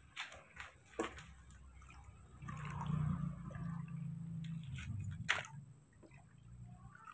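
A stream of water poured from a stainless steel kettle splashing into water in a plastic basin, starting about two and a half seconds in and easing off near the end. A few light knocks and clicks come before it and one sharper click comes during it.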